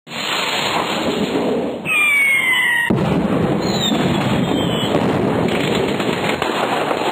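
Rocket-launch alarm sound effect marking the end of a countdown timer. A loud, dense crackling noise starts suddenly, and about two seconds in a whistle falls in pitch for about a second.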